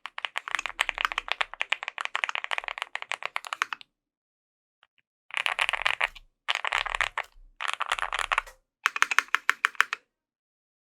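Fast typing on a custom mechanical keyboard with lubed Gateron Mizu Mink switches, EnjoyPBT keycaps and an aluminium plate: a long run of quick keystrokes, a pause of about a second and a half, then four shorter bursts of rapid typing before it stops near the end.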